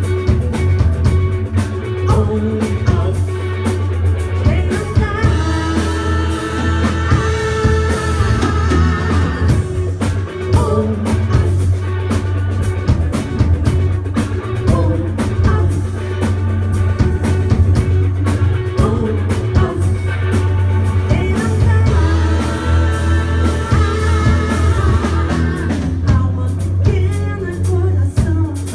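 Live rock band playing: electric guitar, bass guitar and drum kit with singing, the bass heavy and constant under a steady drum beat.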